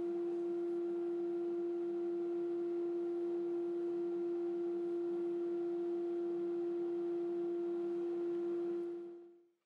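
Table-mounted router running at speed: a steady, even hum with a high whine over it, fading out near the end.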